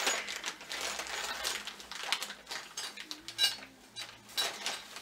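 Clear plastic bag crinkling and rustling as small plastic parts are unwrapped by hand, with a few sharp clinks of the hard parts knocking together, the loudest about three and a half seconds in.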